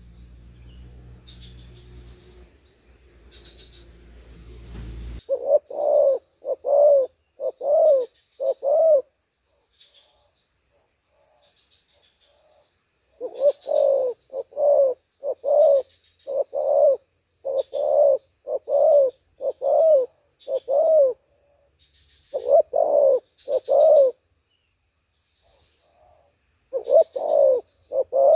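Spotted dove cooing loud and close: short deep coos in phrases of two to five, with pauses of a few seconds between phrases, starting about five seconds in.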